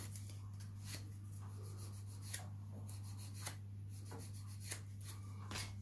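Nail file scraping in short, faint, irregular strokes across the edge of an artificial wrap nail, filing off loose bits of tip and product. A low steady hum runs underneath.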